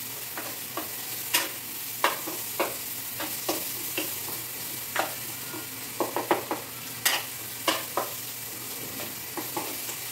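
Chopped onions, garlic and green chillies sizzling in hot oil in a wok, with a steady hiss, as they are sautéed. A metal spatula scrapes and clinks against the pan at irregular intervals.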